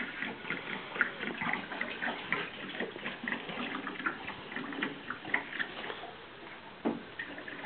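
Wine running from the tap of a plastic wine container into a glass bottle, an irregular splashing gurgle that eases off about six seconds in. A single knock comes near the end.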